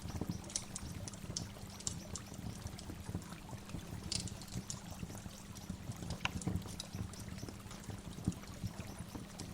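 Waterfall water splashing and trickling steadily, with short high bird chirps scattered throughout.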